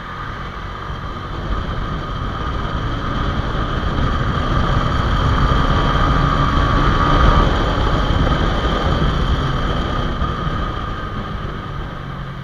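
Road noise from riding a Honda Hornet 2.0 motorcycle: wind rushing over the microphone mixed with engine and traffic noise, growing louder up to about seven seconds in and then easing off.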